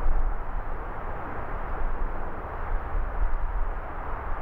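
Strong wind gusting over the microphone, a deep uneven buffeting rumble, over a steady hiss of distant city traffic.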